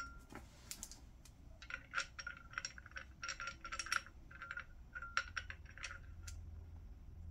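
Small steel crimp dies clinking and clicking against each other and against the head of a hydraulic cable-lug crimper as they are fitted into it: clusters of light metallic clinks.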